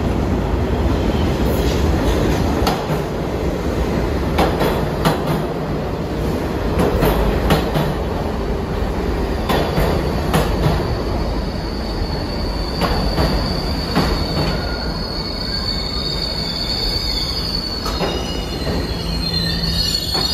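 New York City subway train pulling into an underground station: a steady rumble with wheels clacking over rail joints. About halfway through, a high steady squeal sets in and grows, adding more squealing tones near the end as the train slows.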